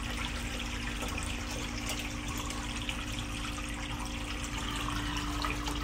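Water steadily running and trickling in a shallow crab tank, over a constant low pump hum.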